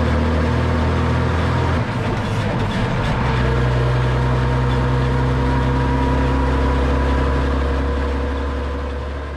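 Heavy truck's engine running with the propeller shaft spinning under it, a road test of a newly replaced drive shaft head. The engine note shifts down about two seconds in and then runs steady.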